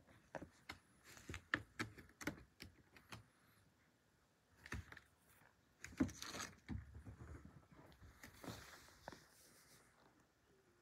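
Two cats scuffling on a rug: claws scratching and catching on the fabric, with soft bumps and rustles in irregular flurries. The loudest scrape comes about six seconds in.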